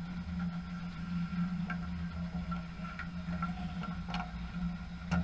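Ice rink ambience: a steady low hum with a few faint, scattered clicks and knocks.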